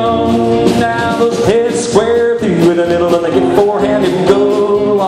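Country band playing the instrumental part of a square-dance singing call, with no words sung.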